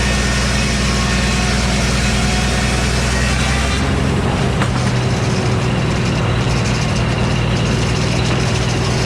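Old Frick sawmill running under power, its circular saw cutting through a poplar log with a dense, hissing cut noise over the steady drone of the drive. About four seconds in, the cutting noise drops away and the mill keeps running.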